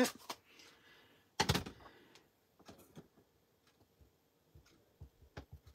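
A clear acrylic stamp block being handled and pressed onto card stock on a desk: one sharp knock about a second and a half in, then faint scattered clicks and taps, coming quicker near the end.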